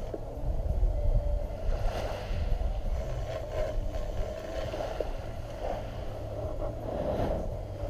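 Wind rumbling on the microphone over a steady mid-pitched hum, with faint brief rustles or scrapes now and then.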